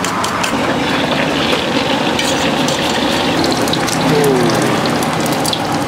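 Steady sizzling hiss of food frying at a street-food stall, with scattered faint clicks over it.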